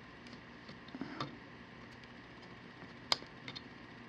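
Klein D2755G flush cutters trimming the leftover nylon zip tie tail: a few faint clicks, then one sharp snip a little after three seconds in and two small clicks after it. The cutters are going over the cut again to take off the raised edge.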